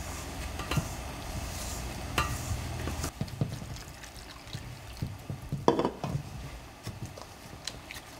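Water poured from a glass measuring cup into a stainless steel bowl of ground corn, then stirred in with a bundle of wooden stirring sticks. Scattered clicks of the sticks against the metal bowl, and one louder splash a little past the middle.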